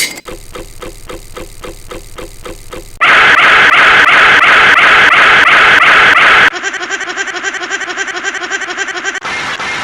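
A run of unrelated sound-effect clips spliced back to back, each cutting abruptly into the next: a pulsing sound of about four beats a second, then a much louder steady noise with a fast pulse about three seconds in, then two further clips changing again about six and a half and nine seconds in.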